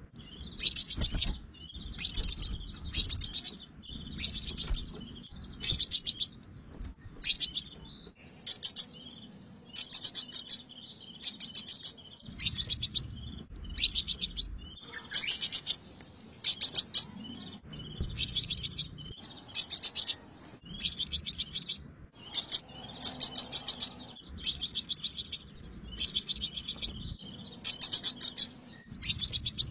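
Crimson sunbird calling: rapid trills of high, sharp chirps in short bursts, repeated about once a second.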